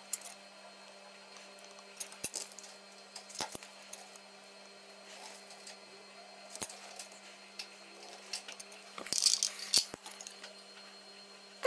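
Tweezers and a soldering iron clicking and tapping now and then during hand soldering of tiny surface-mount parts, over a steady low hum, with a quick cluster of small clicks and rustling about nine seconds in.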